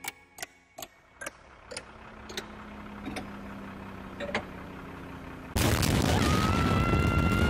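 A cartoon explosion sound effect hits suddenly about five and a half seconds in, loud and dense, with a thin high ringing tone that slides up and then holds, and it cuts off abruptly about two seconds later. Before it, faint scattered ticks and a low steady hum that slowly grows.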